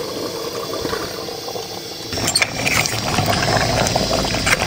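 Masala gravy poured onto fried chicken in an aluminium pressure cooker and stirred with a metal spoon: wet sizzling and sloshing, louder from about two seconds in, with a few clinks of the spoon against the pot.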